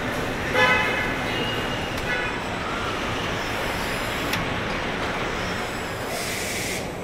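Car assembly plant floor ambience: a steady din of machinery, with short pitched tones about half a second and two seconds in, a sharp click just after four seconds, and a short high hiss near the end.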